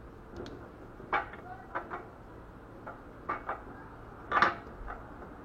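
Sharp metal clinks and knocks as a ZMZ 406-family intake camshaft is lowered into its bearing seats in the cylinder head. About six separate clinks, the loudest near the end.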